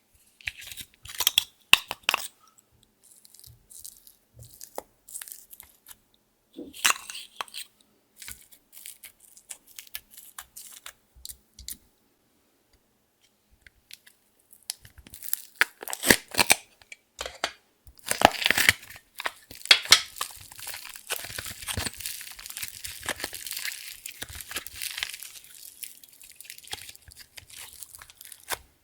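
Slime being squeezed and stretched by hand: scattered sticky clicks and pops, then from about 18 seconds a dense, continuous crackling.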